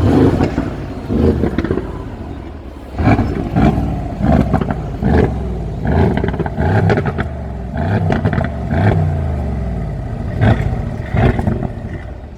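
Mercedes-AMG GLC63 S exhaust, the engine revved in about a dozen short, loud blips with the pitch rising and falling, and sharp crackles and pops between the revs.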